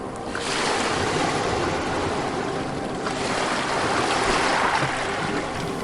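Ocean waves breaking and washing up a shore, swelling about half a second in and again after about three seconds.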